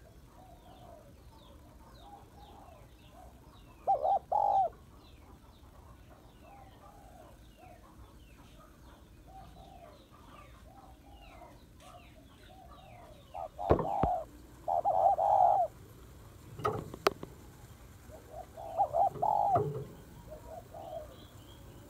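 Spotted dove cooing in short phrases, louder around four seconds in, again around fourteen to fifteen seconds and nineteen to twenty seconds, with softer coos between. Faint high chirps sound behind it, and there are a couple of sharp knocks.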